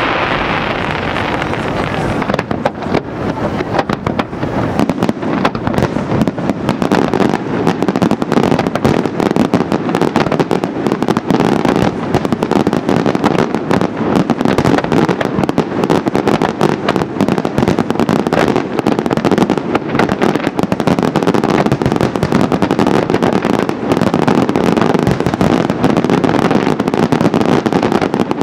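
Professional fireworks display: a rapid, continuous barrage of aerial shell bursts and crackling, becoming dense about two seconds in.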